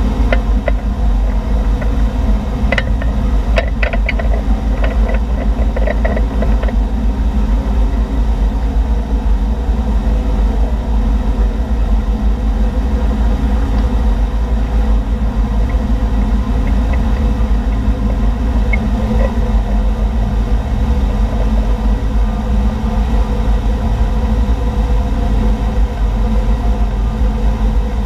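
Tow boat's engine running steadily at towing speed, a loud low rumble with an even hum, and a few faint clicks about three to six seconds in.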